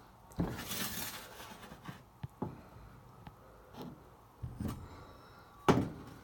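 Scattered knocks and clicks of parts and tools being handled on a dryer cabinet, with a short scraping rustle about half a second in and the loudest knock near the end.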